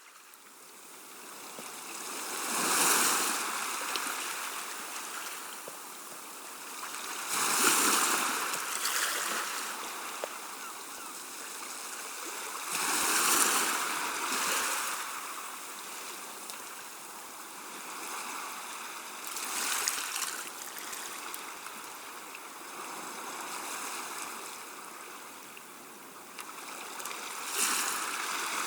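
Gentle sea waves washing onto the shore, swelling and falling back about every five to six seconds, five washes in all.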